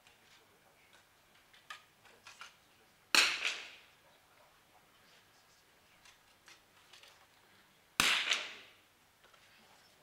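Two .22 smallbore target rifle shots about five seconds apart. Each is a sharp crack that rings off briefly in the hall, with a few faint clicks in between.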